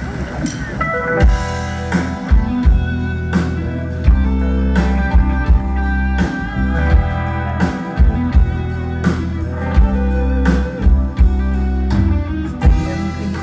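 Live rock band playing an instrumental intro through a PA: electric guitars, bass and drum kit, coming in about a second in with regular drum hits under sustained guitar chords.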